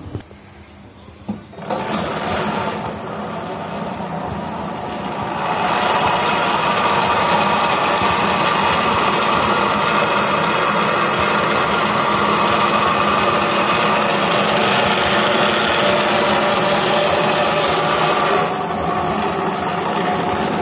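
Mattress tape edging machine's 300 UB looper sewing head stitching binding tape onto a mattress edge. It starts about two seconds in, picks up speed and runs louder from about five seconds, runs steadily, and eases slightly near the end.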